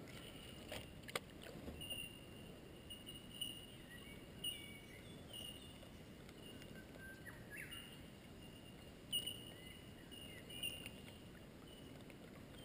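Birds calling from the riverbank trees: short high whistled notes about once a second, with a few lower gliding notes. A few sharp clicks stand out, the loudest about a second in and about three-quarters of the way through.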